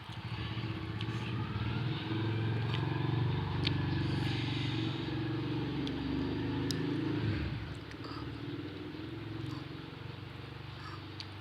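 An engine hum, as of a motor vehicle passing, that swells over the first couple of seconds, holds, and then fades about seven seconds in. A few light clicks sound over it.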